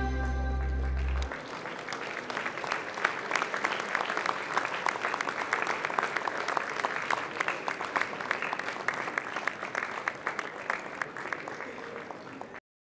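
Music ends about a second in, and audience applause follows. The clapping swells, eases off slowly, and then cuts off suddenly near the end.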